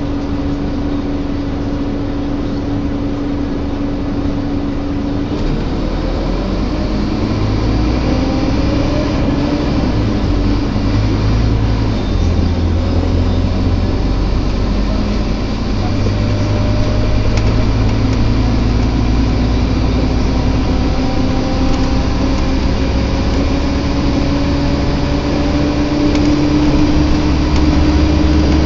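Scania Omnilink K230UB single-deck bus heard from on board while driving, with the groaning noise this bus makes. A steady low groaning tone holds at first; then the deep engine note steps up about five seconds in, and whining tones slowly rise in pitch as the bus gathers speed, growing a little louder near the end.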